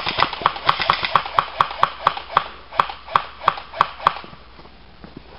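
Airsoft gun firing rapid semi-automatic shots, sharp clicks about four a second, stopping about four seconds in.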